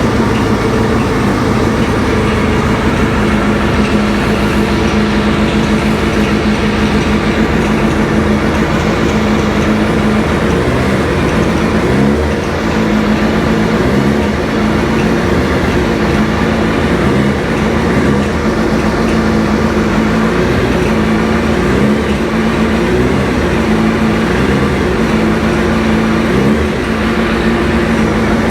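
2005 Suzuki Hayabusa GSX1300R's 1299 cc inline-four engine running just after start-up, idling steadily at first. From about ten seconds in, the revs rise and fall a little every second or two.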